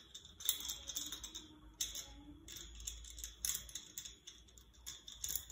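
Irregular light metallic clicks and rattles from the threaded T-handle screw of a scissor-arm boom stand's desk clamp being turned by hand.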